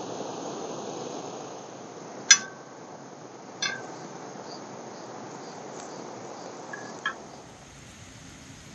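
Three sharp metallic clinks, the first the loudest, of camp cookware being handled. Behind them are steady insect chirping and a low hiss that eases off near the end.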